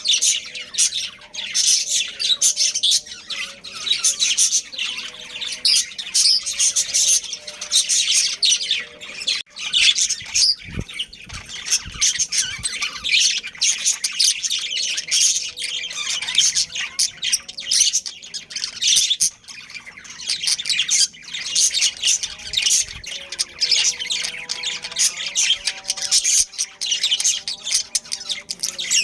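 Budgerigars chattering and chirping, a dense, busy mix of quick high chirps and squawks that carries on without a break.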